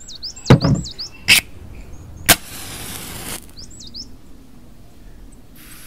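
A heavy stone block set down on concrete with a dull thud, then a sharp knock. A cigarette is struck alight with a sharp click and about a second of hissing flame. Small birds chirp in quick, repeated calls.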